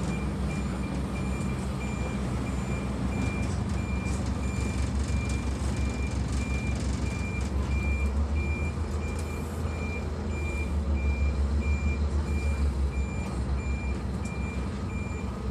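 Scania N230UD Omnicity double-decker's five-cylinder diesel engine running, heard from the upper deck as a steady low rumble that swells twice midway. Over it a bus reversing alarm beeps steadily about twice a second, the sign that the bus is backing up.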